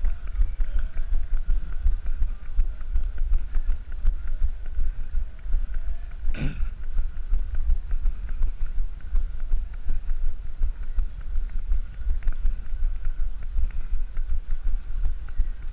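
A runner's strides on tarmac heard through a body-worn camera: rapid, uneven low knocking and rubbing from each footfall jolting the camera, with wind buffeting the microphone. A brief sharp sound cuts through about six and a half seconds in.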